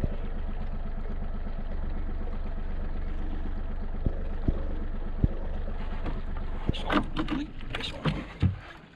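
40 hp outboard motor running steadily at trolling speed, a low even drone with a regular pulse. Three sharp clicks come in the middle, then a cluster of knocks and clatter near the end as the motor's drone fades away.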